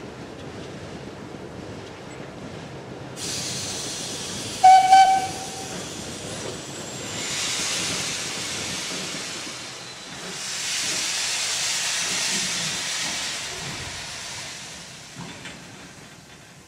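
A steam locomotive's whistle gives one short blast about five seconds in, over hissing steam. The steam hiss then swells twice, each time for a few seconds.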